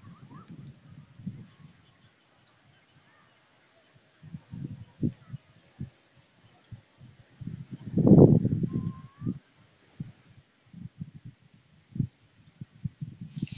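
Wind gusting on the microphone in irregular low rumbles, loudest about eight seconds in. Faint high-pitched insect chirping runs beneath it.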